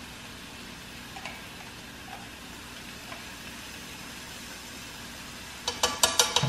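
Chicken breasts frying in butter in a skillet, a steady sizzle. Near the end comes a quick run of sharp clicks and crackles as minced garlic is added to the pan.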